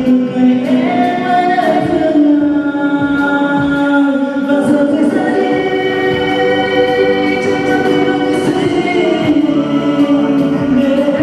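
Music: a pop ballad with sung notes held long over the accompaniment.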